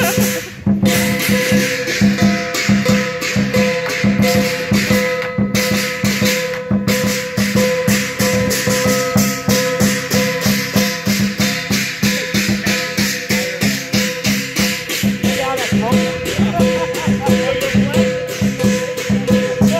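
Lion dance percussion: a big Chinese lion drum with clashing cymbals keeping a fast, steady beat for the dancing lions, with a ringing tone held underneath. There are short breaks in the cymbal wash about half a second in and twice around the middle.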